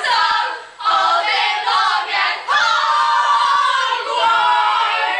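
Young voices singing together without accompaniment, in about three sustained phrases with brief breaks between them.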